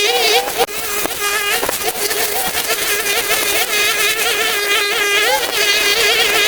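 Background music: a buzzy melodic line with wavering, ornamented pitch over a steady drone, with a brief break about half a second in.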